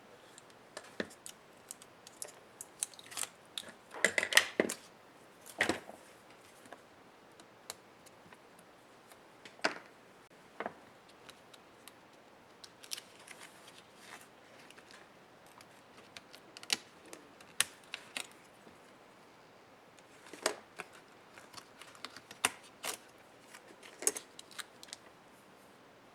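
Scattered clicks and taps of small tools and plastic laptop parts being handled during disassembly of an HP ProBook 430 G6, loudest in a short cluster about four seconds in.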